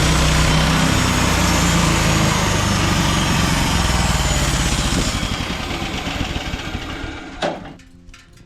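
Gas engine of a portable bandsaw sawmill running steadily, then winding down from about five seconds in and dying away near the end, with a single knock just before it falls quiet.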